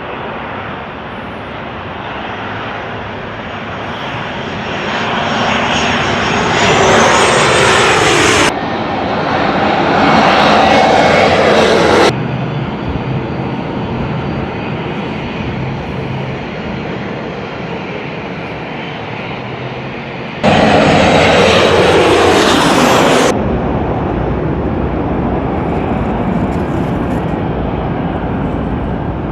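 Airliners passing close, their engine noise swelling and dropping in pitch as each goes by. The sound jumps abruptly several times, louder then quieter, as separate passes are cut together.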